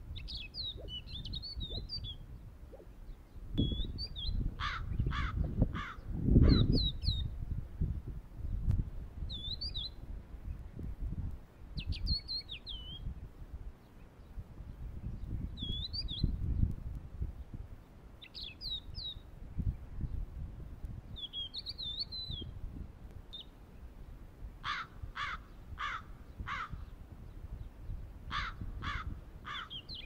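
Wild birds calling: short high chirps that sweep up and down, scattered throughout, and three runs of four or five sharp repeated notes, about two a second, a few seconds in and twice near the end. A low rumble runs underneath, loudest about six seconds in.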